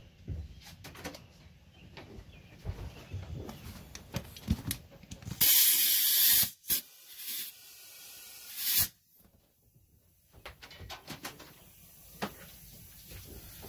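Air hissing loudly for about a second around the middle, then more quietly for about two seconds and ending in one more short hiss, as the punctured wheelbarrow inner tube is checked for its leak. Faint rubbing and clicks of the rubber tube being handled come before and after.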